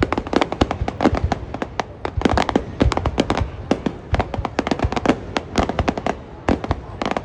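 Fireworks going off: a dense, continuous run of sharp bangs, several a second.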